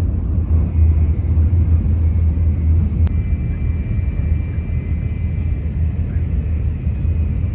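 Shinkansen bullet train running at speed: a loud, steady low rumble. About three seconds in there is a single click, and after it a faint, steady high whine.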